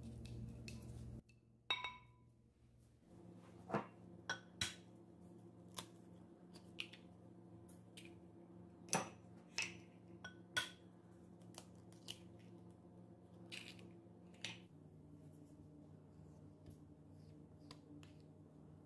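A ringing clink on a ceramic bowl, then a run of sharp taps and clicks as eggs are cracked on the bowl and their shells handled, over a faint steady hum.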